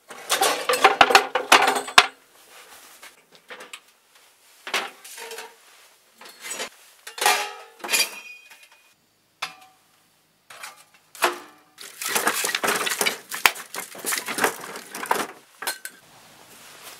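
Camping cookware and utensils being handled: two spells of dense clattering and clinking, one at the start and one from about twelve seconds in, with scattered single clinks and knocks between.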